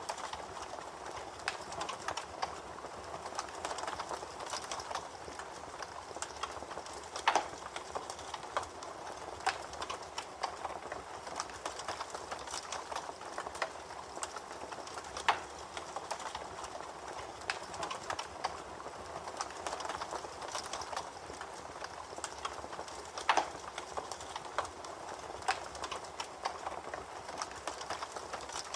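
Campfire crackling: a steady hiss of burning wood with irregular snaps and pops, a few louder sharp cracks standing out.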